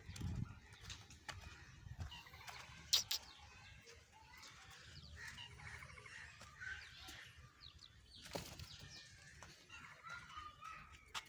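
Chickens clucking and calling in scattered short notes, with a few sharp clicks, the loudest about three seconds in.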